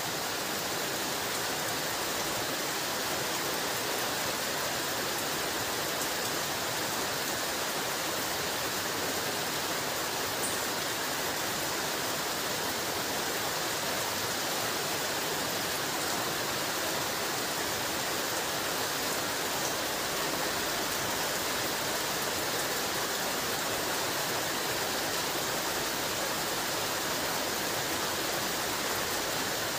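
Heavy rain falling steadily, an even hiss that holds the same level throughout.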